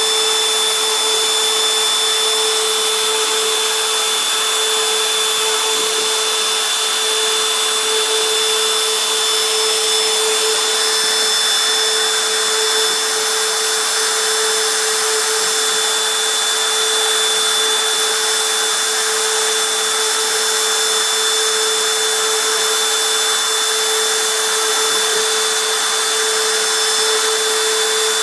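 Fireball V90 CNC machine's spindle running steadily while drilling a printed circuit board: a constant whine with a thin high tone over a hiss, without change in pitch or level.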